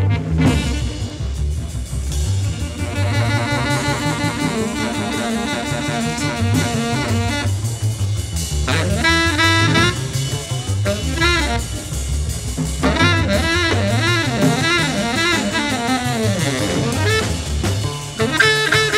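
Free-jazz trio: an alto saxophone plays fast, wavering, bending phrases over a walking double bass and busy drum kit. The saxophone drops out briefly twice and comes back in high near the end.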